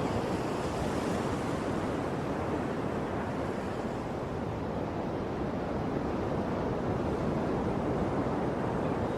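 Sea waves washing in, a steady rushing surf without distinct breaks.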